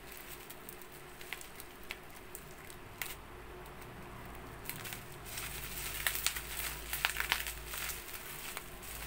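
Bubble wrap crinkling and crackling as a wrapped parcel is handled, in scattered irregular clicks that get busier after about five seconds.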